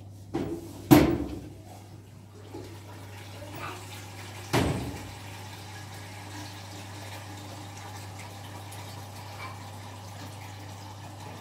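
A few sharp knocks, the loudest about a second in and another near the middle, then a steady rush like running water.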